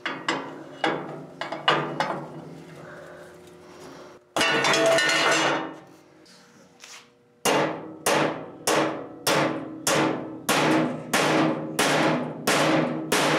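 Hand hammer blows on a steel go-kart frame. There are a few uneven strikes at first, then a dense rushing noise lasting about a second and a half, then a steady run of ringing strikes about every 0.6 seconds through the second half.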